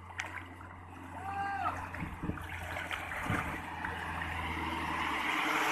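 Truck wading through floodwater: water rushing and splashing off its front, growing steadily louder as it comes closer, over the low drone of its engine. A short pitched call sounds once about a second and a half in.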